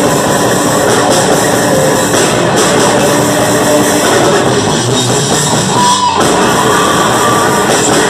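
Death metal band playing live and loud: heavily distorted electric guitar, bass guitar and a drum kit in a dense, continuous wall of sound.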